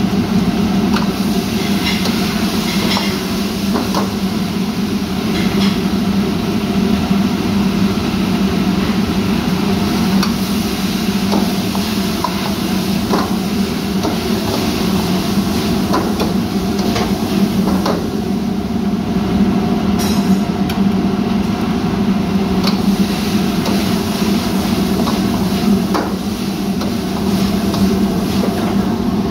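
A metal ladle scraping and knocking against a wok as food is stir-fried, in irregular clanks, over the steady roar of a commercial gas wok range.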